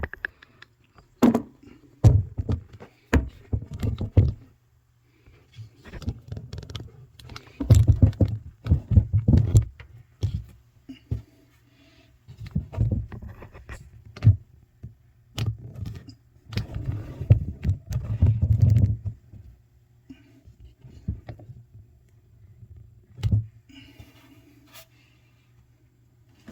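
Irregular knocks, thuds and clatter of hand work around a bathroom sink as old faucets are taken out, coming in clusters with short quiet gaps.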